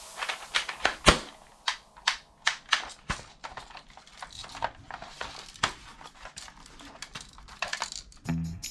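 Irregular sharp clicks and light knocks of plastic toy guns being handled, with a louder snap about a second in.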